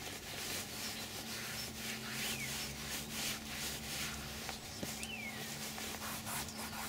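A cloth rubbing in circular strokes over the leather door panel of a Rolls-Royce Silver Spirit II, heard as soft repeated swishes. It is working leather protection cream into the grain.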